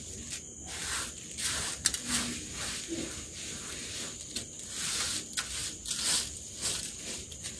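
Hands squeezing and turning ghee-coated basmati rice in a steel bowl: soft, repeated squishing and rustling of the grains, with one sharp click about two seconds in.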